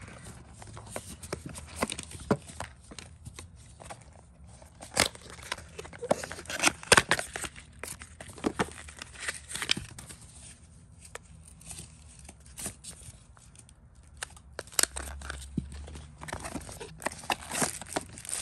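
Cardboard box parts and plastic wrapping being handled: scattered rustles, crinkles and light taps, with a few louder clicks about five to seven seconds in.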